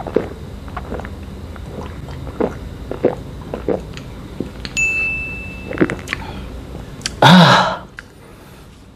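A man gulping a carbonated malt drink from a glass bottle, a run of swallows about two a second. A short high ding sounds about five seconds in, and near the end comes a loud "aah" breathed out after the drink.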